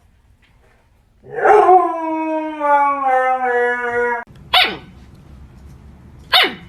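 A dog howls once for about three seconds, the pitch sliding slowly down, and then gives two short barks a couple of seconds apart.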